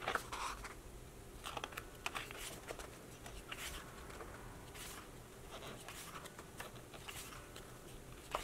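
Pages of a large photo book being turned and smoothed by hand: a string of faint, short paper rustles and brushes.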